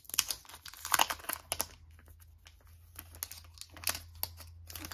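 Wrapping around a small stack of photocards crinkling and crackling as it is peeled open by hand, densest in the first second and a half, with lighter rustles and a few more crackles near the end.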